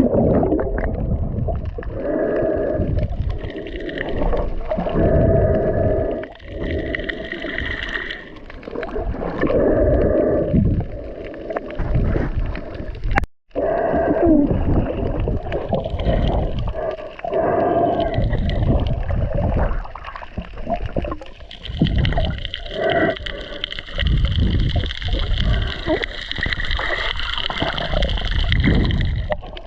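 Underwater sound of a diver swimming: muffled rushing water and gurgling, surging in uneven swells every second or two. It breaks off for an instant about halfway through.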